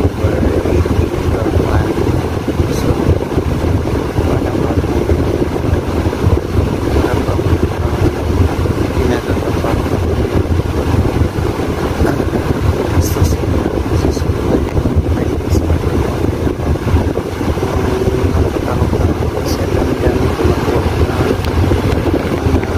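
Steady low rumbling noise of air buffeting the phone's microphone.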